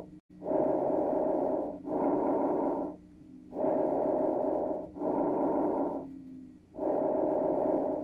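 Heavy, rasping breathing in pairs of breaths, each about a second long, with short pauses between the pairs.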